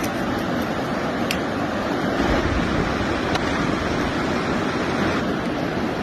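A fast, shallow river rushing over a stony bed: a steady wash of water noise, with a few faint clicks near the start and at about one and three seconds in.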